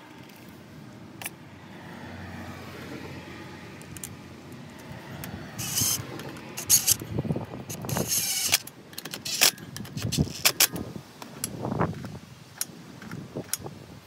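Metal clicks and clinks of a socket tool working the bolts of a manual locking hub as it is bolted onto the front wheel hub, with short noisy bursts about six and eight seconds in. The first several seconds are mostly quiet.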